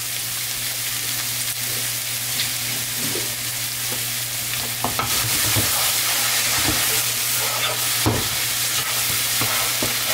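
Onion, garlic and chopped peppers sizzling in oil in a nonstick frying pan, with a steady hiss, while a wooden spatula stirs them, scraping and tapping against the pan in scattered short clicks.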